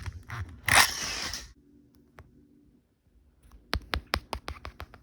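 Toy trains being handled on a toy railway track: a short rustling hiss about a second in, then, after a quiet pause, a quick run of light plastic clicks, several a second, as a toy engine is moved along the track.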